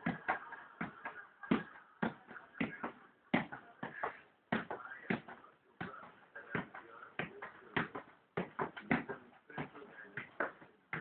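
A size 1 football being kicked up again and again in keepy-uppies: a run of soft, irregular thuds, about two to three touches a second.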